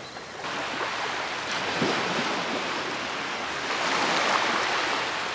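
Small ocean waves breaking and washing up onto a sandy beach, one wash swelling loudest about four seconds in.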